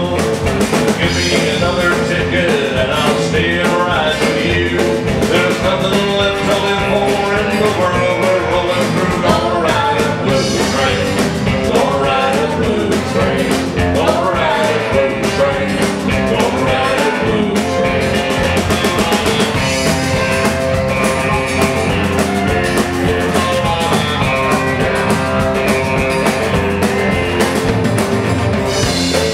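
Live country band playing: strummed acoustic guitar, electric guitar, bass and drums, with a woman's voice singing at times.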